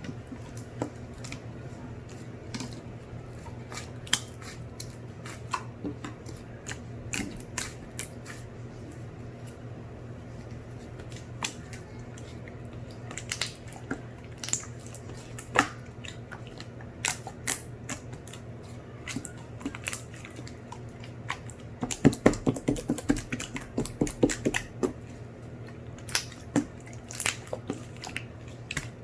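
Irregular small sharp clicks and taps, with a dense flurry of them about three-quarters of the way through, over a steady low hum.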